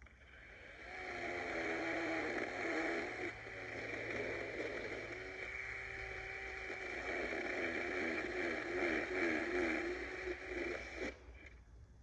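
DeWalt 20V battery chainsaw running and cutting through a tree limb, its motor pitch wavering as the chain bites, then stopping abruptly near the end.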